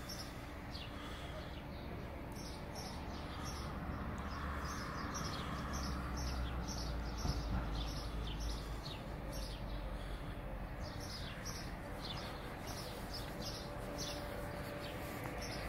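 Small birds chirping over and over, short high falling chirps several times a second, over a steady low rumble that swells in the middle.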